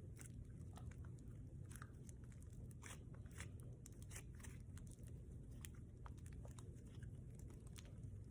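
Butter slime being squished and stretched by hand, giving faint, irregular little clicks and crackles.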